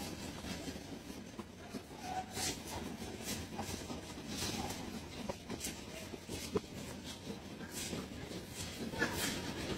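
Green glass bangles clinking and scraping against each other and the wooden board as a coil of them is handled, with scattered light clinks over a low background noise.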